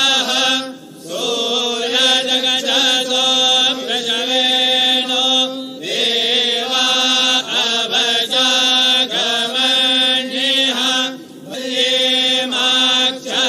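Group of voices chanting mantras in long phrases over a steadily held tone, with brief pauses about a second in, near six seconds and near eleven seconds.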